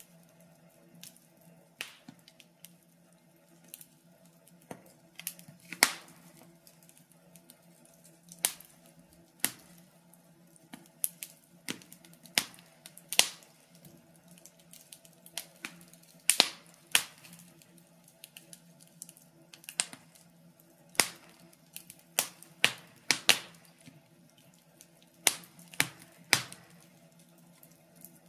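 Wood fire crackling, with irregular sharp pops, several loud ones standing out, over a faint steady low hum.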